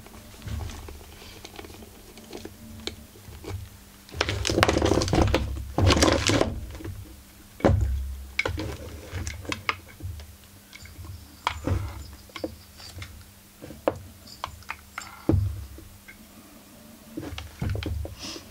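Workshop handling noise from a dismantled two-stroke chainsaw and hand tools on a workbench: irregular clicks and clinks of metal parts and tools, a dense stretch of clatter about four to six seconds in, and several sharp knocks as the crankcase and tools are moved and set down.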